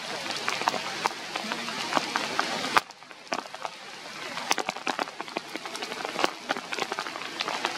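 Rain falling on leaves and branches: a steady hiss with many separate drops ticking, dropping briefly quieter about three seconds in.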